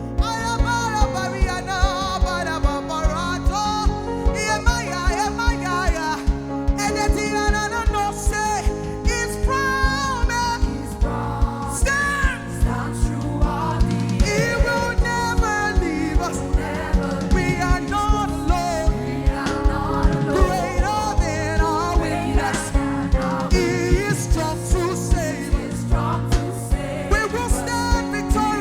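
Live worship band playing a song with a steady drum beat under a singer's melody.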